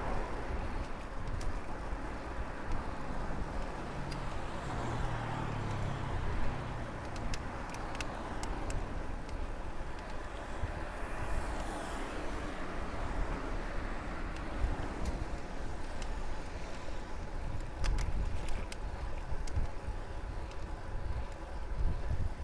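Steady wind and tyre noise from a road bike riding along a road with car traffic, a car's engine hum rising briefly early on and a few sharp clicks.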